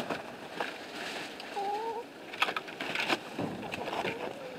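Hens giving a short, wavering call about a second and a half in and a fainter one near the end, with scattered crunches of footsteps in snow in between.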